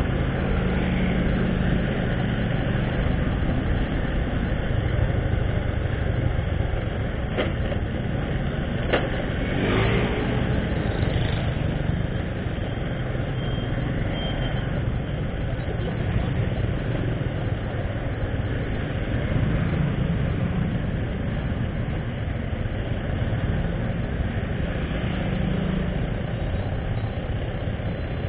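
Motorcycle engine running while riding through town traffic, its note changing with speed, amid the sound of other motorbikes and cars. Two short sharp clicks about a third of the way in.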